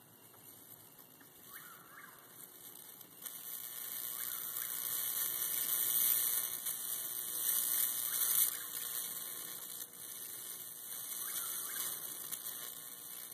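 Electric bug zapper's high-voltage grid arcing through a bug stuck on it: a continuous high-pitched sizzle that swells about three seconds in, is loudest in the middle, then eases off.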